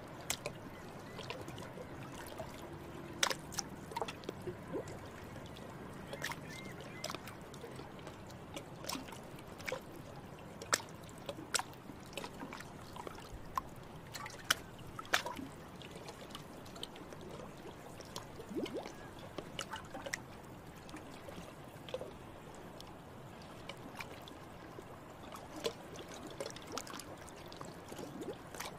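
Stones being skipped and sinking in water: a string of short sharp plops and splashes at uneven intervals over a steady trickle of moving water.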